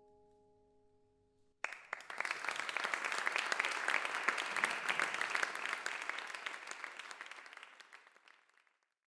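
The last vibraphone chord rings and dies away, then about a second and a half in an audience starts applauding; the applause builds, holds and fades out near the end.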